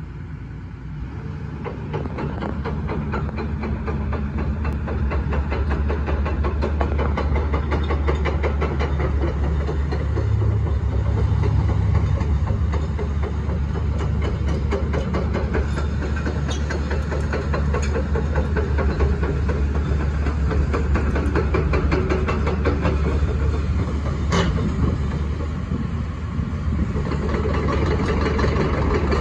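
Hyundai R210 crawler excavator's Cummins diesel engine running at a steady idle, a deep even drone that grows louder over the first few seconds.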